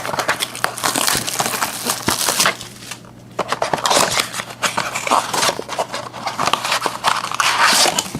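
Packaging of a trading-card blaster box crinkling and tearing as it is opened by hand, in irregular bursts with a short pause about three seconds in.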